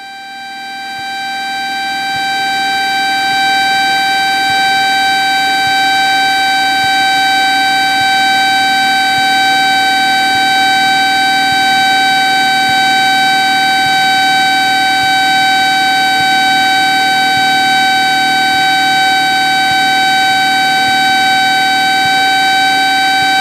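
Cessna 172 stall warning horn sounding one steady high tone. It swells over the first few seconds and then holds, over the drone of the engine and propeller in the cabin. It is the sign that airspeed has bled off to near the stall in the slow, high-pitch part of a chandelle.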